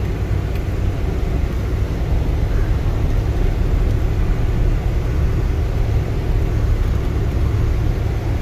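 Engine of a four-wheel-drive vehicle pulling steadily at low speed up a steep rocky grade, heard from inside the cab as a steady, low engine noise.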